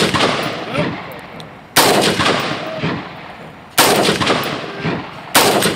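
Three rifle shots about two seconds apart, each sharp crack trailing off in a long echo.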